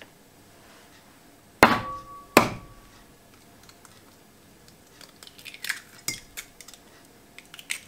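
Kitchenware being handled: two sharp knocks, the first ringing briefly, then a run of lighter clinks and taps of dishes and utensils about five seconds in.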